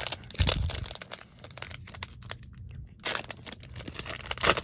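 Foil trading-card pack being crinkled and torn open, a crackling rustle with louder bursts about half a second in, around three seconds in, and near the end.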